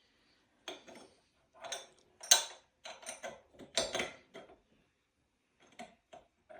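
Metal parts of a Luvele meat grinder clinking and scraping as the four-blade cutter is worked onto the stainless steel grinding screw: a run of short clatters, the loudest about two seconds in. The grinder is not running.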